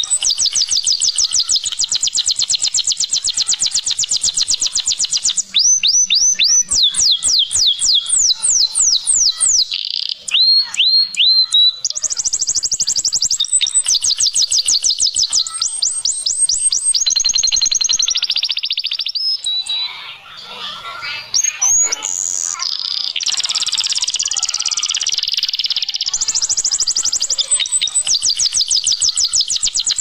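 Domestic canary singing: long, fast trills of rapidly repeated high notes, broken by phrases of slower, quick falling sweeps, one phrase running straight into the next.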